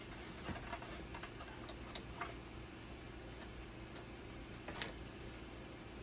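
Faint, irregular small clicks and taps of gloved hands handling parts at a dialysis machine's blood pump cabinet, over a steady low hum.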